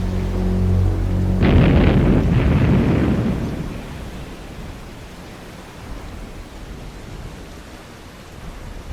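A steady low drone is cut about a second and a half in by a sudden loud explosion. The blast rumbles, fades over about two seconds, and leaves a faint low rumble.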